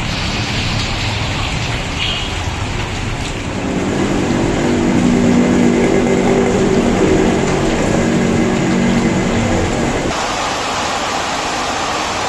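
Heavy monsoon rain pouring steadily onto floodwater. From about three seconds in until about ten seconds, a motorbike engine runs underneath the rain as the bike rides through the flooded street; then the engine drops away abruptly and only the downpour remains.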